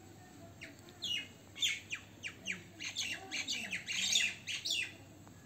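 A quick run of short, shrill animal calls, each sweeping steeply down in pitch, starting about a second in and stopping near the end.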